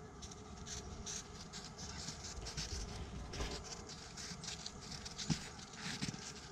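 Footsteps in snow: many short, uneven steps, several a second, from walkers moving through the snow.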